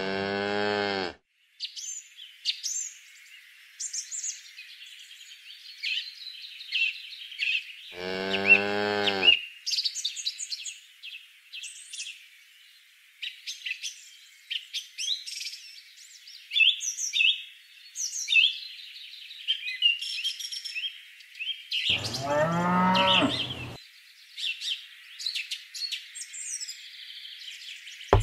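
A cow mooing three times: once at the very start, again about eight seconds in, and a longer call about twenty-two seconds in. Birds chirp and tweet throughout.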